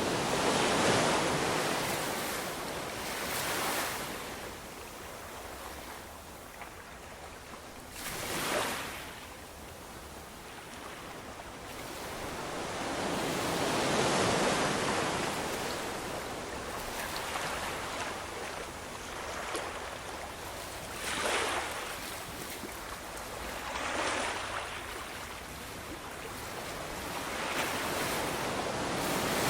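Ocean waves breaking and washing up the shore in repeated surges. Each surge swells and fades over a few seconds, with a longer, louder swell building about halfway through.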